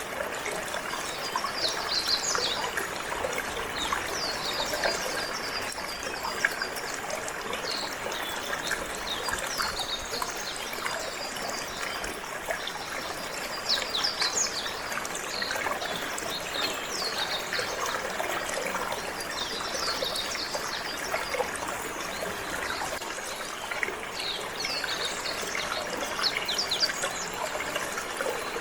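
Water running and trickling steadily, with a canary singing in short spells of high, quick, falling chirps every few seconds.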